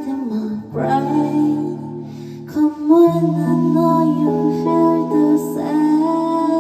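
Band music with sung vocals: long held notes that step from one pitch to the next.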